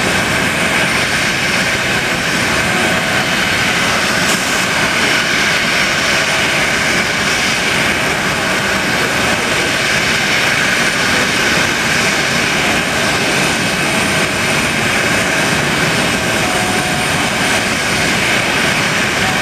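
A Boeing 737's two jet engines running at low taxi power, a steady rushing whine that holds level throughout.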